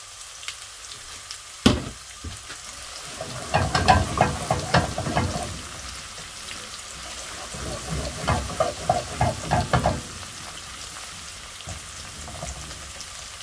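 Garlic and spring onion stems sizzling in hot oil in a non-stick wok, with a sharp knock about one and a half seconds in. A spatula stirs and scrapes the pan in two bouts.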